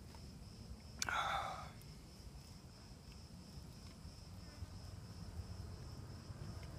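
An insect's steady, high-pitched buzz with a faint pulse, running on in the background, with a short, sharp noise about a second in.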